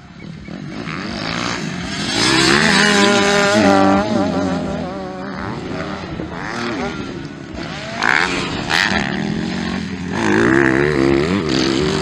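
Motocross bike engines racing on a dirt track, revved hard through the gears. The pitch climbs and drops repeatedly, with the loudest runs about two seconds in and again near the end.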